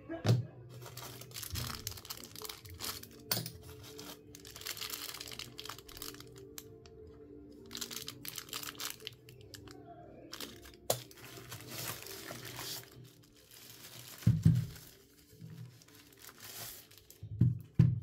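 Plastic packaging bags crinkling and tearing as the keyboard and its small accessories are unwrapped, with sharp clicks and two loud dull thumps in the last few seconds.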